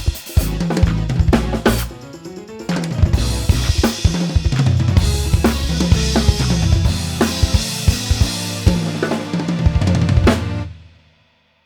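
Drum kit with Soultone cymbals played busily, with kick, snare and crashes, over a backing track with deep held bass notes. About two seconds in there is a brief rising sweep. Near the end the playing stops and rings out to silence.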